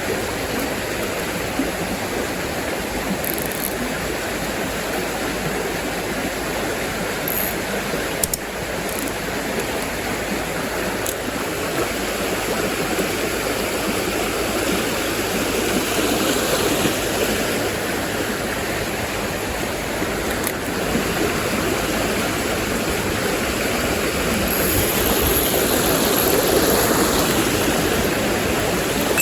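Mountain trout stream running, a steady rush of water close by that grows a little louder in the second half.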